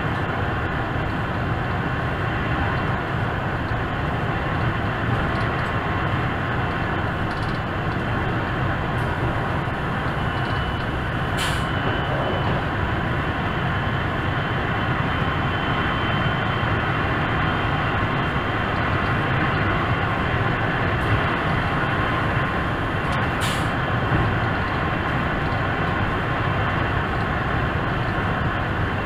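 ÖBB class 4124 electric multiple unit running along the line, heard from the driver's cab: a steady rolling and running noise. Two brief sharp clicks come about twelve seconds apart.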